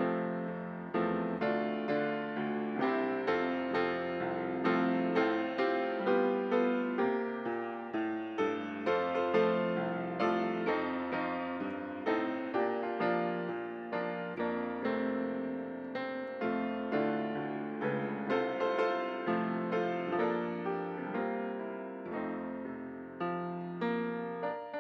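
Piano playing instrumental music, notes struck one after another and dying away, with no singing.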